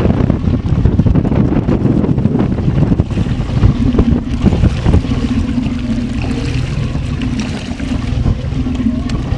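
Heavy wind buffeting the microphone, with a sportfishing boat's engine idling underneath as a steady low hum that comes through from about three and a half seconds in.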